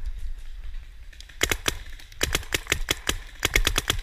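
Paintball marker firing in three quick bursts of sharp shots, several a second, the first starting about a second and a half in.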